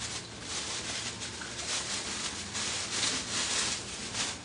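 Rustling and rubbing from ingredients being handled on a table, in an uneven series of strokes.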